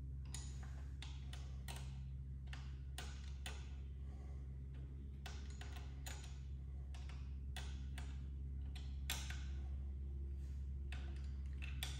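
Light clicks and taps of a small Allen key and metal fittings at a hydraulic brake lever's hose connection, irregular, about two a second, over a steady low hum.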